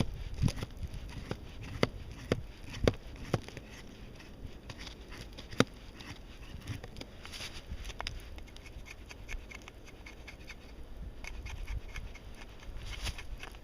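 Knife cutting pieces from a wet stick of fatwood: irregular sharp clicks and cracks, bunched in the first few seconds, with stretches of scraping in between.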